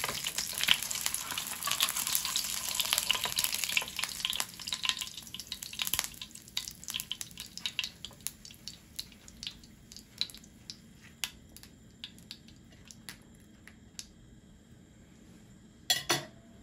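An egg frying in hot oil in a nonstick frying pan: a steady sizzle for the first few seconds that dies down to scattered pops and crackles of the leftover oil once the egg is lifted out. Near the end, a short loud clatter as the metal spatula is set down on the plate.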